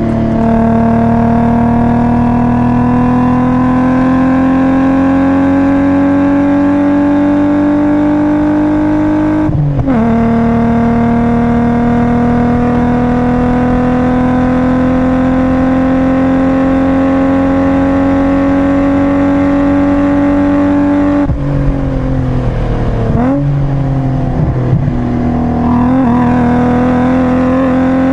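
BMW E36 328i's 2.8-litre straight-six, heard from inside the cabin, pulling hard: the engine note climbs slowly through a gear, breaks for an upshift about ten seconds in, then climbs again. About two-thirds of the way through the revs fall as the driver lifts off, with quick rev blips on the downshifts, and the note climbs again near the end.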